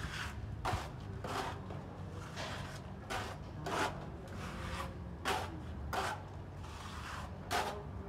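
Plastering trowel scraping cement render across a rough masonry wall in about eight short, unevenly spaced strokes.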